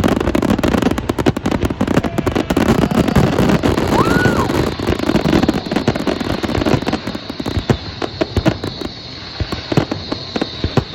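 Fireworks going off: a dense, rapid run of crackling pops and bangs that thins out into more separate pops in the second half, with a short rising-and-falling whistle about four seconds in.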